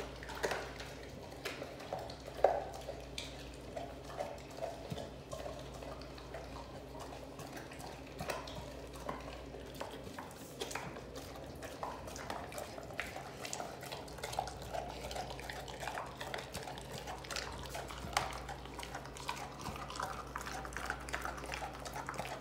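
American bully dog chewing and gnawing a large raw turkey leg: wet smacking with many irregular sharp clicks of teeth on bone, and one louder knock about two and a half seconds in. A steady low hum runs underneath.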